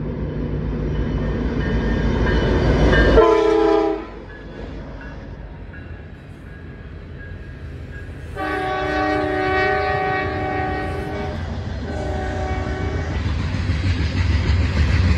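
Norfolk Southern diesel locomotives blowing a multi-note air horn as a loaded coal train approaches a grade crossing: a building engine rumble and a first blast that cuts off abruptly about four seconds in, a long blast around the middle and a short one after it. Near the end the low rumble of loaded coal hopper cars rolling past takes over.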